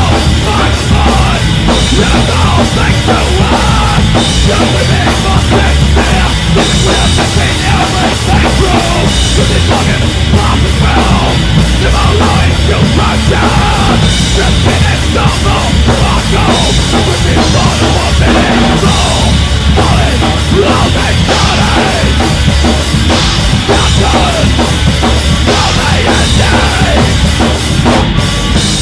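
Loud heavy rock recording, distorted and dense, driven by a full drum kit.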